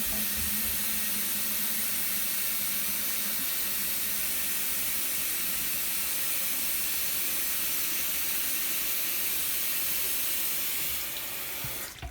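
Bathroom sink tap running steadily into a humidifier's water tank as it is filled. The water cuts off about a second before the end.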